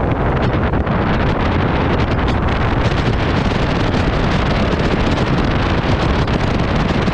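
Wind rushing over the microphone of a motorcycle riding along a dirt road, over the steady running of a Royal Enfield Himalayan's single-cylinder engine and the tyres on the loose surface. Scattered small ticks of gravel come through.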